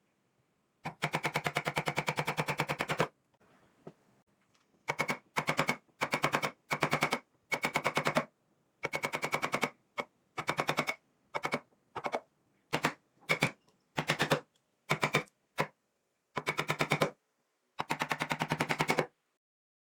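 A power carving chisel hammering into wood in rapid strikes, switched on and off in short bursts of a fraction of a second to two seconds.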